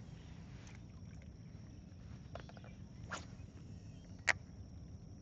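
Small fishing boat sitting on the water: a low steady rumble with a few sharp ticks and knocks of handled gear, the loudest about four seconds in, over a faint steady high tone.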